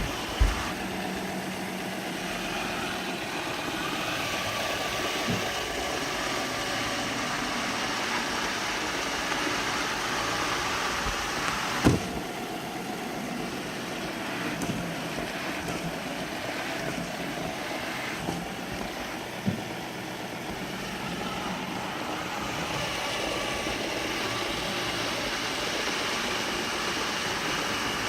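iClebo Arte robot vacuum cleaner running, its motor and brushes making a steady whirring noise, with a few short sharp knocks, the loudest about twelve seconds in.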